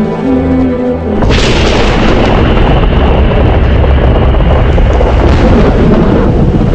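Held music tones, then about a second in a sudden, loud, sustained crashing rumble: a glacier's ice front calving and collapsing into the sea.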